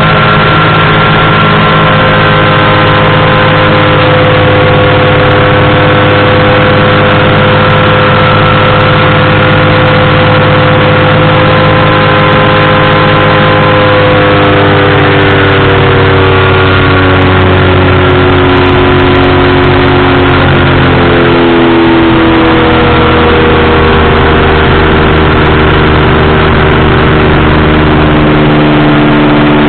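Powered parachute's engine and propeller running loud and steady in flight. About halfway through, the engine pitch slides lower as the revs come down, then holds at the lower pitch.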